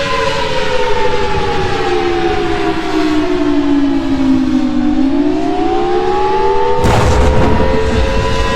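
Outdoor tornado warning siren wailing: its pitch slides down for about five seconds, then climbs back up and holds steady. A low rumble runs underneath, and a burst of rushing noise cuts in about seven seconds in.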